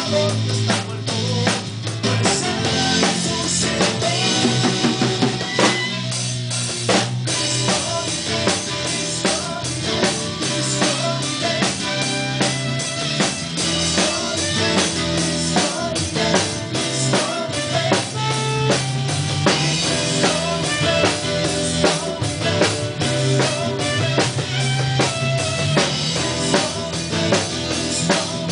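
Live band playing together: a drum kit keeps a steady beat under bass guitar, congas and other instruments.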